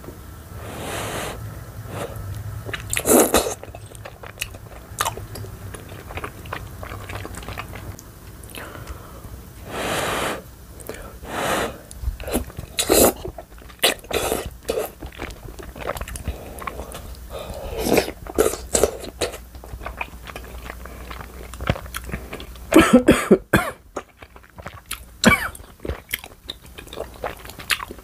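Close-miked eating of cheesy mala rosé tteokbokki: rice cakes and noodles slurped off chopsticks and chewed, with small wet mouth clicks. Several sharp, loud bursts break in between bites, the densest cluster near the end.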